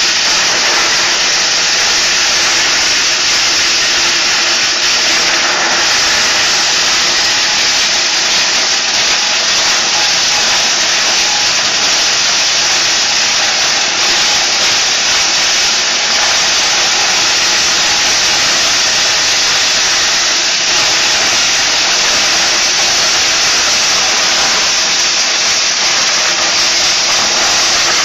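A two-input electric corn sheller running loud and steady while maize cobs are fed in by hand. Its drum strips the kernels in a continuous rushing noise, with a faint motor hum underneath.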